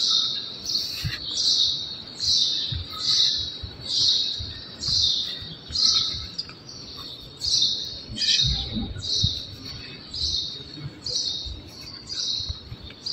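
A bird chirping over and over, one short high chirp roughly every three-quarters of a second, with faint low thuds underneath.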